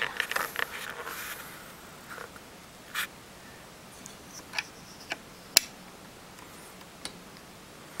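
A soft scrape, then a few short sharp clicks, the loudest about halfway through, as the CPU cooler's metal retention clip is worked over the hook on the plastic socket bracket.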